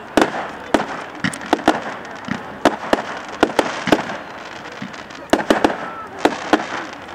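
Aerial fireworks going off: an irregular string of sharp bangs and cracks, about fifteen in all, with a brief lull about two-thirds of the way through.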